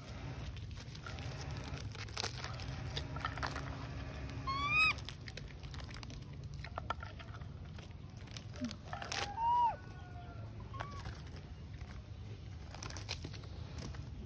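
Baby monkeys calling: a short rising squeal a few seconds in, then an arched, higher coo about two thirds of the way through, with a fainter call just after. Light clicks and rustling over a steady low hum.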